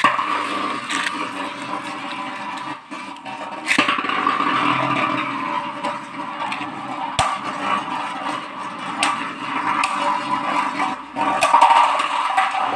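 Two Beyblade Burst tops, a Takara Tomy Obelisk Odin and a counterfeit, are launched at the start with a sharp snap. They spin across the stadium floor with a steady whirring scrape and knock together with sharp clacks several times.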